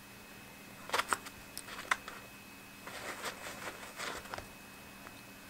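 Faint rustling of fabric and thread as a hand-sewing knot is tied off with needle and thimble: a few soft ticks about one and two seconds in, then a stretch of light rustling.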